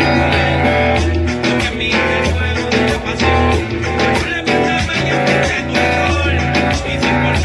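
Electric guitar, a Stratocaster-style solid-body, picked along with a reggaeton backing track that carries a heavy bass line and a steady beat.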